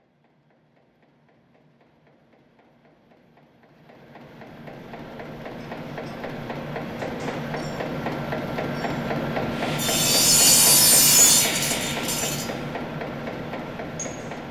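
Factory machinery sound effect: a conveyor and processing machine clattering in a steady rhythm, fading in from silence and building up. About ten seconds in, a loud hiss cuts in for two or three seconds, then the clatter carries on more quietly.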